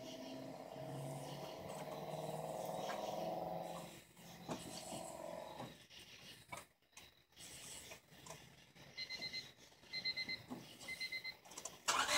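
A faint whine over the first few seconds, then short high electronic beeps repeating over the last few seconds; right at the end the Honda Civic's D16Y5 engine begins to crank over.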